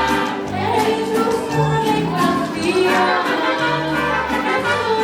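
Mariachi group performing a Spanish-language song, several voices singing together over the band.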